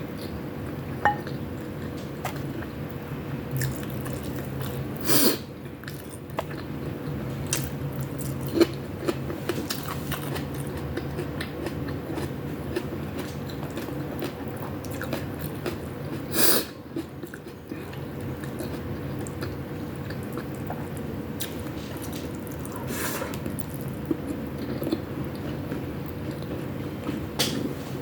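Close-miked chewing and biting: a person eating chicken wings and ground-pork giniling with rice, with small wet mouth clicks and a few short louder bursts now and then.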